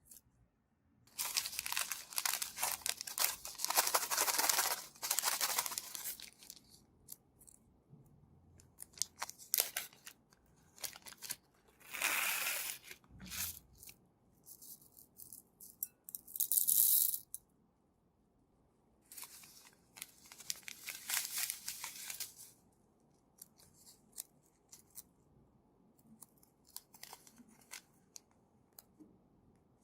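Slime being squeezed and stretched by hand, crackling in several bursts a second to a few seconds long, with short pauses and scattered small clicks between them.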